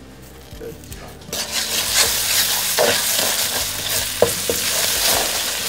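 Eggs and butter frying in a hot pan, starting to sizzle loudly about a second in, with a utensil scraping the pan a few times as the eggs are stirred and scrambled.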